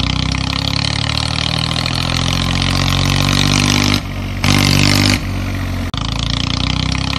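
Tractor-style engine running with a steady, rapid putter. The sound jumps abruptly a few times from about four seconds in, briefly dipping and then coming back louder.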